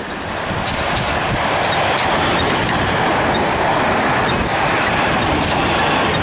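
South West Trains Class 450 Desiro electric multiple unit passing close at speed. Its wheels give a steady rumble on the rails that grows louder about half a second in, with scattered sharp clicks as they run over the rail joints.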